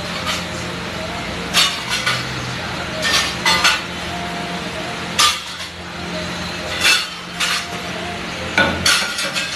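A metal pav bhaji masher knocking and clinking against a large flat iron griddle as the bhaji is mashed. The knocks are irregular, some in quick groups of two or three, over a steady background hum.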